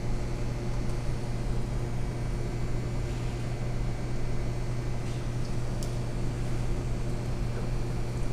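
Steady low hum of a commercial kitchen's ventilation hood fan, with a couple of faint utensil clicks about five to six seconds in.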